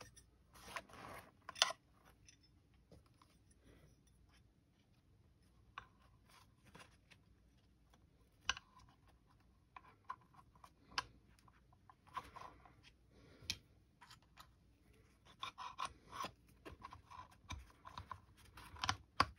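Quiet handling sounds of a metal accessory rail being fitted against a spotting-scope cage over a fabric cover: scattered light clicks and short rustling scrapes, more frequent near the end.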